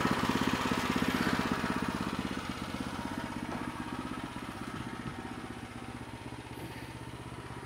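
Small gasoline engine of a Woodland Mills bandsaw mill running steadily at low speed. It grows fainter over the first few seconds, then holds level.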